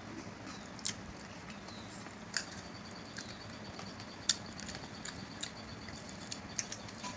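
Close-up eating sounds of two people eating rice and chicken curry with their hands: fingers squishing and mixing the rice on the plates, and chewing, with short sharp clicks every second or so.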